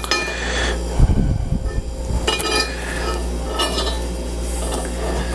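Metal parts of a sliding-door lock mechanism clinking and rattling together as they are handled, several light clinks with a short ring, and a duller knock about a second in.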